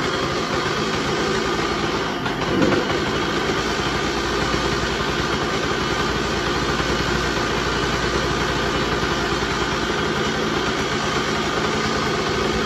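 Single-cylinder two-stroke engine of a 2020 Honda CR125R running on choke just after its first start on a freshly rebuilt top end, through an FMF Fatty pipe with a Powercore 2 shorty silencer. It idles steadily, with one brief rev about two and a half seconds in.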